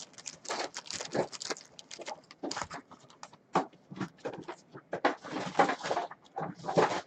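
Trading cards being handled, with irregular light rustles and clicks.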